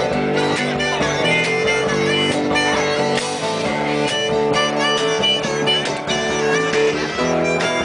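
Live acoustic street band playing an instrumental passage: strummed acoustic guitar under a harmonica lead, with a bass drum keeping a steady beat.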